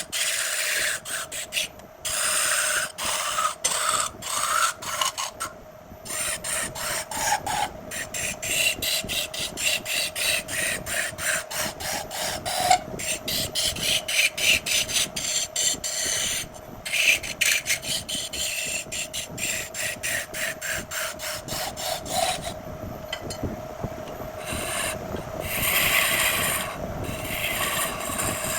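Wood lathe running with a steady hum while a hand tool scrapes against the spinning jackfruit wood in rapid, uneven strokes, with a few short breaks.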